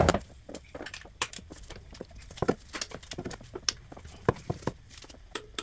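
Ratchet tightening the belt tensioner's mounting bolt: a run of irregular metallic clicks and knocks as the handle is worked back and forth.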